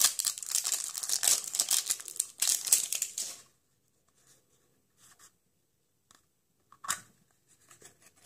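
Plastic shrink-wrap label crinkling and tearing as it is stripped off a plastic toy capsule, for about three and a half seconds. After that come a few faint clicks from handling the plastic capsule as it is pulled open.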